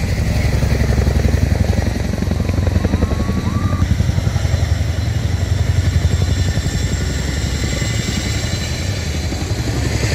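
Helicopter flying over, its rotor beating in a rapid, steady pulse, loud and close.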